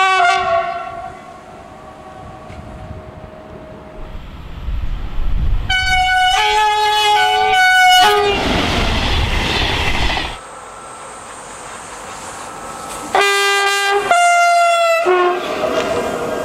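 Trains sounding two-tone horns: the end of one blast at the very start, a two-note horn call about six seconds in with the rush and rumble of a passing train after it, and another two-note horn call about thirteen seconds in, again followed by passing-train noise.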